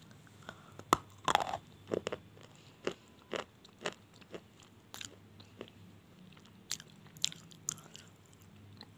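A person biting and chewing an Indica slate pencil: about a dozen sharp, dry crunches at irregular spacing, the loudest about a second in, thinning out near the end.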